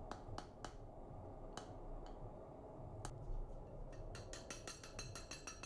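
Faint, sharp ticks and crackles from a red-hot forged steel knife blade, a few scattered at first, then coming quickly, about eight to ten a second, from about four seconds in: forge scale popping off the hot steel as it cools.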